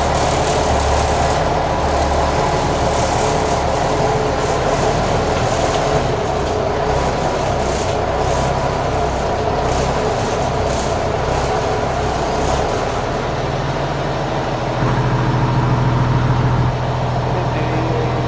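Fish pellet machine running steadily. Its low hum swells louder about fifteen seconds in, then eases back.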